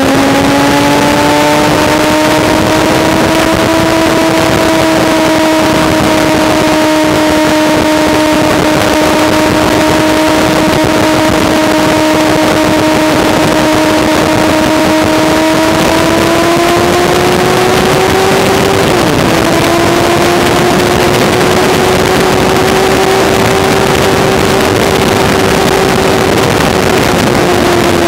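Sport motorcycle engine held at high revs at speed, heard from on board with a heavy rush of wind over the microphone. The engine note climbs in the first few seconds, holds steady, rises slowly, dips sharply for a moment about 19 seconds in, then eases slightly near the end.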